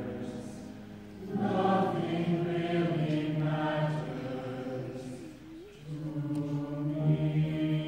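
A mixed high school choir singing in phrases, with a brief drop in level just after a second in and another about five and a half seconds in before a fuller held chord.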